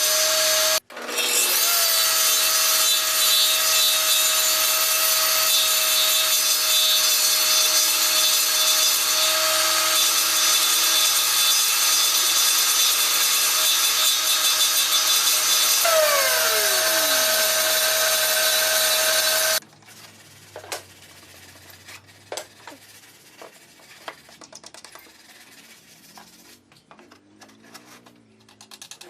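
A power tool running steadily on wood, a loud even noise with a steady tone; a second tone falls in pitch near its end before the sound cuts off abruptly about two-thirds of the way through. Soft clicks and knocks of handling follow.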